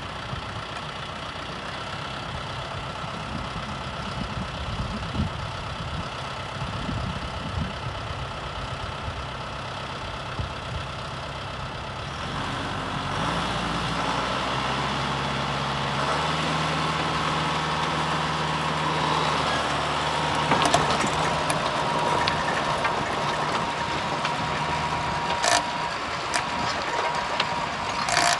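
John Deere 5100R tractor's diesel engine running with a rotary tiller hitched behind; about twelve seconds in the engine picks up and runs louder as the tiller is put to work, and a steady whine joins it. A couple of sharp clicks come near the end.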